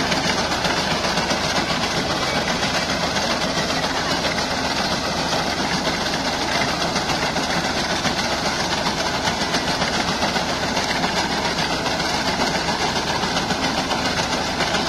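Tractor engine running steadily under load while its front-mounted reaper's reciprocating cutter bar cuts standing wheat, the two blending into one continuous mechanical din.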